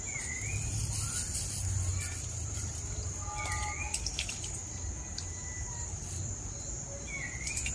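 Crickets trilling in one steady high-pitched drone, while a bird gives a short dipping-and-rising call three times, roughly every three and a half seconds.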